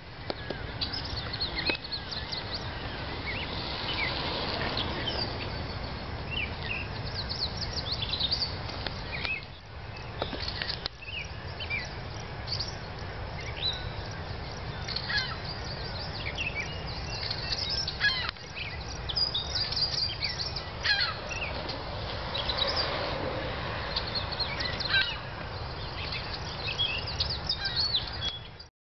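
Outdoor ambience of several small birds chirping and calling, with many short, quick chirps and trills. A steady low rumble runs underneath.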